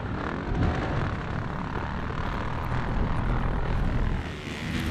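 Motocross bike engine running hard on a dirt track, a steady loud drone that swells near the end.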